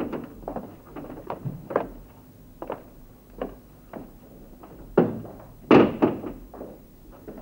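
Footsteps on a hard floor, light knocks about every half second to second, then a door thudding twice, opened and shut, about five and six seconds in, the second thud the loudest.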